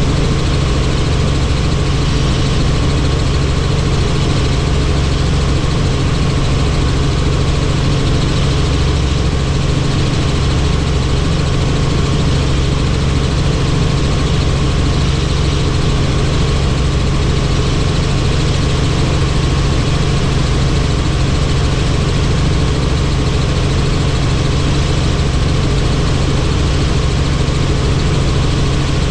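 Helicopter in flight: the rotor and turbine engine make a loud, steady drone with a deep rumble beneath it.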